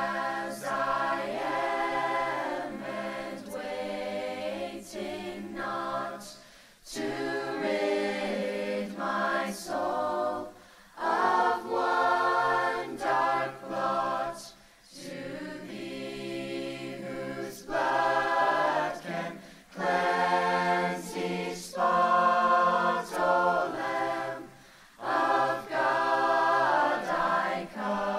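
Mixed-voice high school choir singing a cappella, holding sustained chords in phrases of a few seconds with brief breaks between them.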